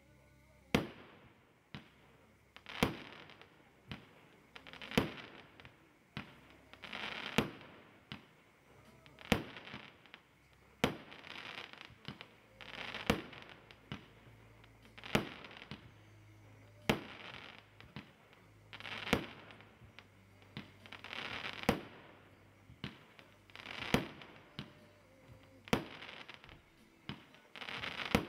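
TXB249 Aqua 25-shot, 1.2-inch firework cake firing single shots about every two seconds, about fourteen in all: each a sharp bang followed by about a second of hiss.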